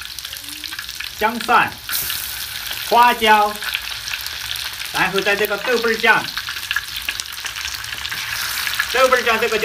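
Hot oil sizzling in a large iron wok with a small heap of minced food frying in it, a steady hiss. Short pitched sounds, like a voice, break in a few times over it.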